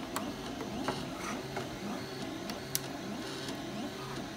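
A few sharp plastic clicks as Lego Technic pieces are pressed together, two of them distinct, about a quarter-second in and near three seconds. Under them runs a steady mechanical whirring with a repeating warble.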